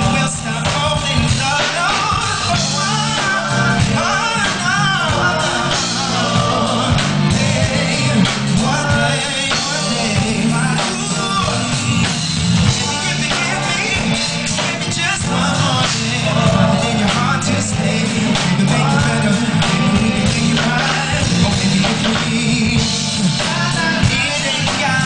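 Male R&B singer singing live into a handheld microphone over a live band, with a steady bass line and drums.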